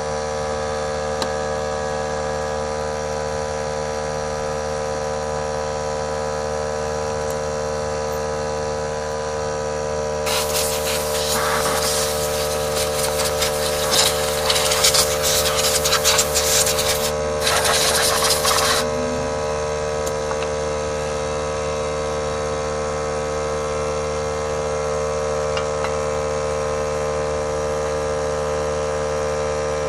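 Briggs & Stratton small engine running at a steady speed, with a harsh, noisy rasp laid over it from about a third of the way in to just past the middle, broken briefly once.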